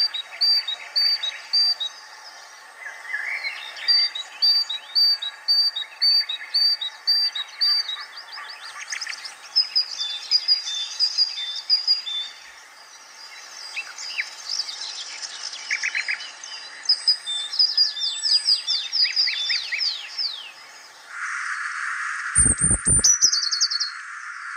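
Many birds chirping: runs of short repeated chirps and quick downward-sweeping calls. About 21 seconds in, the birdsong gives way to a steady hiss with a few short knocks and some higher chirps.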